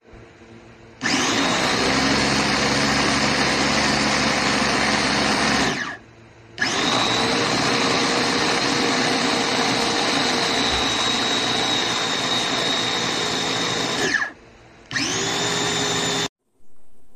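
CQW.NO1 Capsule Cutter Quatre electric mini food chopper running, its blades chopping vegetables in the bowl with a steady motor whine. It runs in three presses: about five seconds, a short stop, about eight seconds, then a brief one-second pulse near the end.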